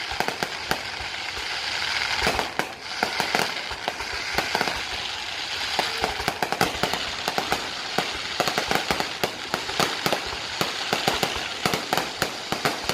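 Aerial fireworks exploding in a rapid, irregular string of sharp bangs and crackles over a steady hiss.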